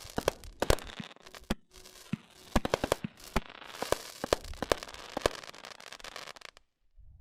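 World Class 'The Whole 9 Yards' firework going off: a rapid, uneven run of sharp bangs with crackling and hiss, stopping abruptly about six and a half seconds in.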